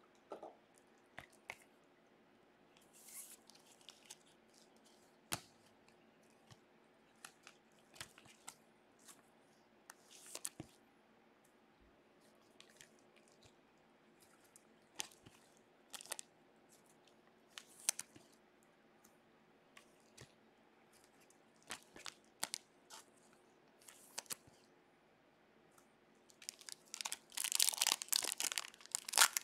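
Trading cards and plastic card holders handled with gloved hands: sparse, light clicks and rustles. Near the end comes a dense run of crinkling and tearing as the wrapper of a card pack is ripped open.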